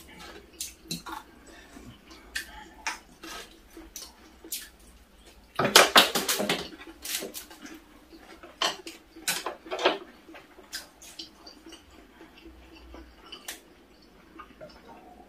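Tableware sounds of a meal: spoons and chopsticks clicking and tapping against bowls and dishes in scattered short knocks, with a louder run of clattering about six seconds in.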